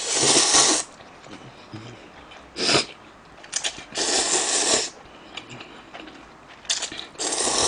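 A person slurping ramen noodles up from chopsticks in repeated loud bursts: a long slurp at the start, shorter ones around three and four seconds in, and two more near the end.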